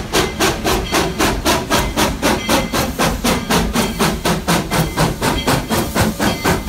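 Narrow-gauge steam locomotive No. 40, a Baldwin 2-8-0, working under steam with a steady exhaust chuff of about five beats a second.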